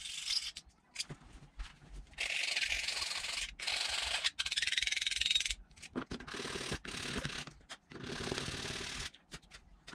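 Hand file rasping along the broken edge of a copper-clad circuit board in several slow strokes, each about a second long, smoothing off the rough edge left after snapping the board along a scored line.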